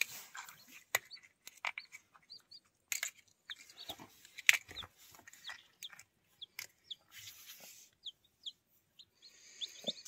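Newly hatched chicks peeping: many short, high peeps scattered throughout, with sharp clicks and rustling in the nest.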